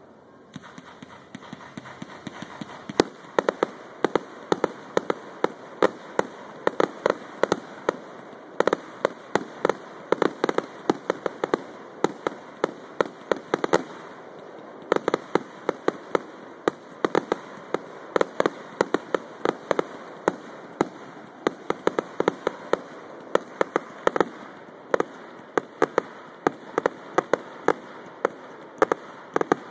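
Fireworks going off: dense runs of sharp pops and crackles, several a second, starting about three seconds in and broken by a few short pauses, over a steady hiss.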